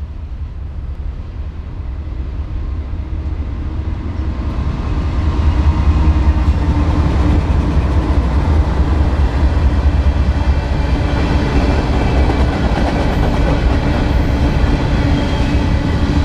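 Freight train with diesel locomotives approaching and passing close by, its rumble growing louder over the first five or six seconds. It then settles into the steady rumble and clatter of covered hopper cars rolling past on the rails.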